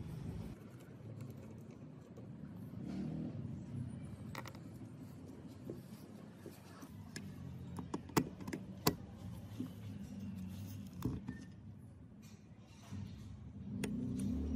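Small metal parts and tools being handled during the engine teardown: scattered light clicks and clinks over a low rumble, with two sharper clinks about eight and nine seconds in.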